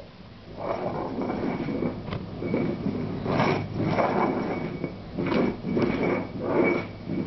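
A dog bowl scraping and sliding across a tile floor in repeated short pushes, as a baby's hand shoves it along.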